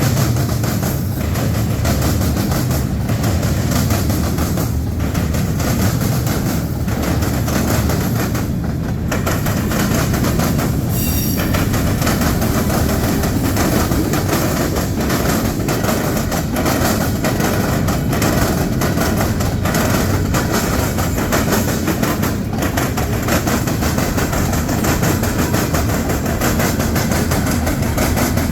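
Norfolk Southern freight train's cars rolling past in a steady rumble, with a faint clack about every two seconds as wheels pass over the track.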